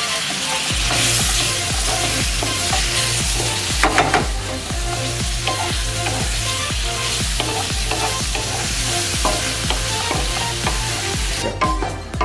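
Chayote strips and chili paste sizzling in a wok while a wooden spatula stirs and scrapes them, with a few sharper scrapes about four seconds in. The sizzling cuts out just before the end. Background music with a steady low beat plays throughout.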